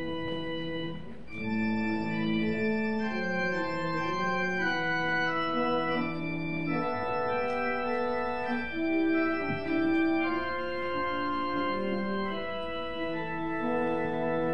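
Organ playing slow music in held chords, several notes sounding together and changing every second or two.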